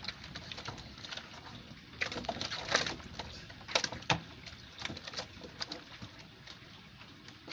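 Water splashing in bursts, with a few sharp knocks, as catfish broodstock thrash while being caught and handled in a holding tank.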